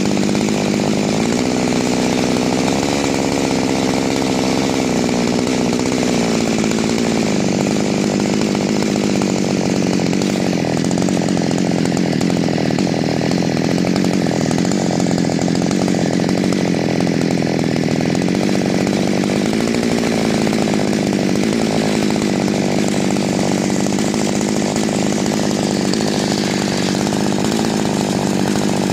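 Two-stroke engine of a Chinese clone chainsaw idling steadily while its carburettor's low-speed (idle) screw is turned. The idle speed rises a little a few seconds in, then settles back lower, with a slight lift again later.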